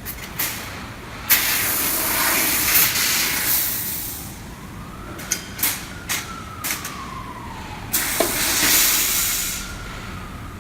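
CNC fiber laser cutter cutting thin stainless steel sheet: bursts of gas hiss as it cuts, broken by sharp clicks. A motor whine rises and falls in pitch as the cutting head moves between cuts.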